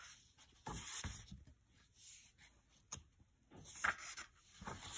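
Faint paper rustling and soft handling noises in a few short bursts, about a second in and again near the end: the pages of a picture book being turned.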